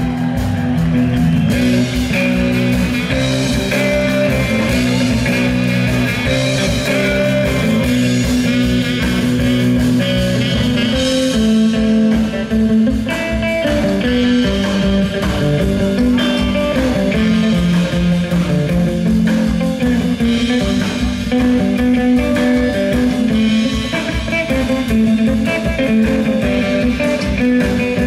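Live rock band playing an instrumental passage, a guitar leading over bass and a steady drum beat.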